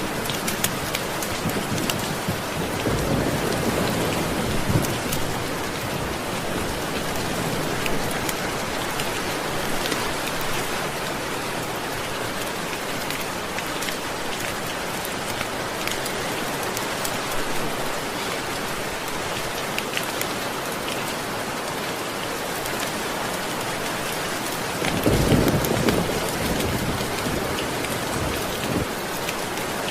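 Steady heavy rain with scattered sharp ticks, and two low rolls of thunder: a soft one a few seconds in and a louder one near the end.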